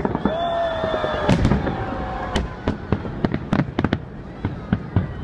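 Fireworks display, with shells bursting in a rapid, irregular series of sharp bangs and crackles.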